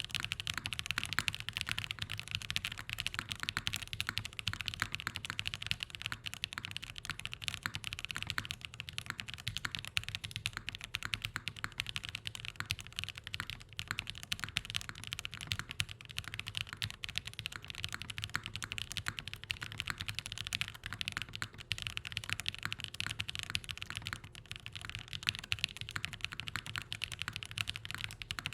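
XOX70 custom mechanical keyboard with Graphite Gold switches in an aluminium plate being typed on continuously, a dense stream of many key clacks a second.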